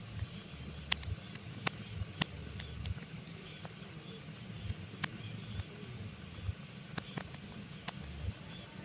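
Pine logs burning in a fireplace: a steady low rumble and hiss of the fire, with sharp crackles and pops at irregular intervals.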